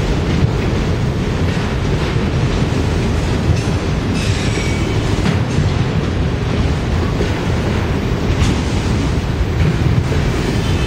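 Freight train of autorack cars rolling past at close range: a steady rumble of steel wheels on rail with scattered clacks, and a brief faint wheel squeal about four seconds in.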